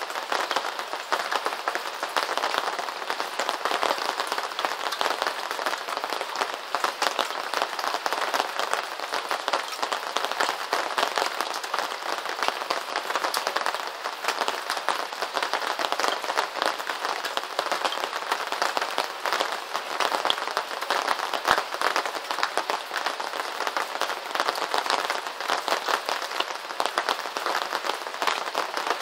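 Steady rain, a dense patter of many small drops hitting a surface, even and unbroken throughout.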